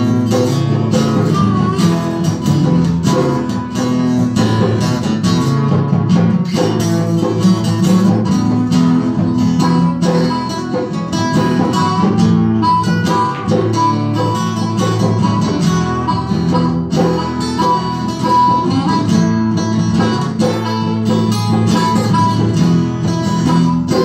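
Live acoustic band music: two acoustic guitars strumming chords while a harmonica plays held notes and phrases through a microphone.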